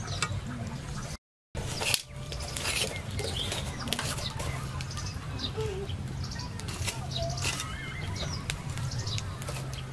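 Outdoor ambience: a few faint bird chirps over a steady low hum and scattered light clicks.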